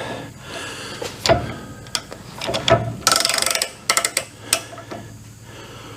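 Metal clicks and knocks from a hand arbor press and the steel parts in it being worked, with a short, fast ratcheting rattle about three seconds in.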